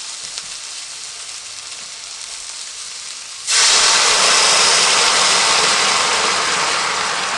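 Cremini mushrooms sizzling in olive oil and butter in a hot pan. About three and a half seconds in, sherry wine hits the pan and the sizzle jumps suddenly to a much louder hiss of frying and steam, which eases off slowly.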